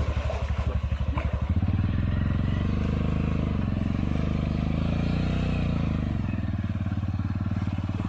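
Enduro motorcycle engine ticking over at idle, then revved up about 1.5 s in and held at higher revs, wavering, before easing back down near the end.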